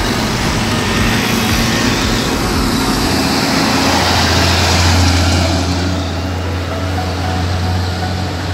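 A coach and then a diesel cargo truck driving past close by: tyre and engine noise swells, with a deep engine drone strongest about halfway through, then eases off.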